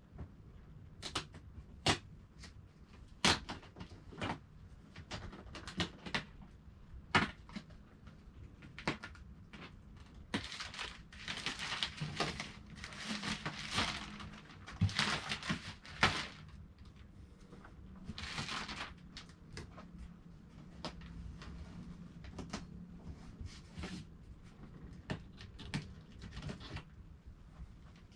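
Plastic shrink wrap crinkling and tearing as it is pulled off a large cardboard box: scattered sharp crackles at first, then a few seconds of dense rustling in the middle and a shorter stretch a little later.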